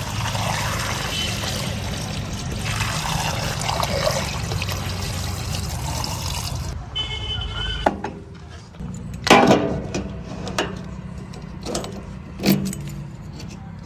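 Oil pouring from a can through a plastic funnel into a JCB backhoe loader's tank, a steady splashing trickle over a low hum. After about seven seconds it stops, and a few sharp metallic clicks and knocks with jangling keys follow as the tank's locking filler cap is handled.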